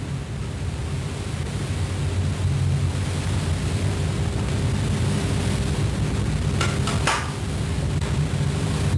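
Steady hiss and low electrical hum from a worn videotape copy, with a brief cluster of three or four clicks about seven seconds in.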